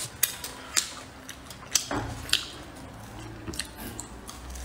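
Close-up eating sounds: chewing and biting a piece of fried food, with several sharp crunchy clicks spread through.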